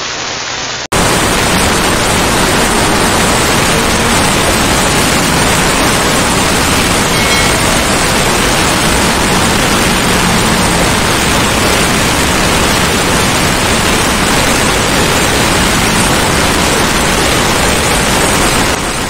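A brief static glitch sound for about the first second, then steady, loud rushing wind noise on the microphone of a sport motorcycle riding at highway speed.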